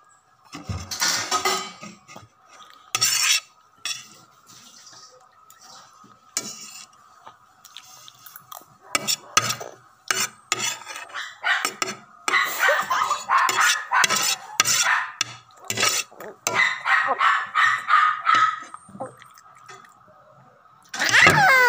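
Dishes and cutlery clinking in irregular clusters of short clatters, over a faint steady high tone.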